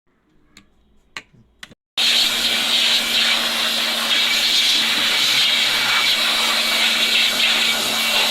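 Electric air blower switched on about two seconds in and running steadily with a hum, blowing loose solder and debris off an amplifier circuit board so it won't short. A few clicks come before it starts.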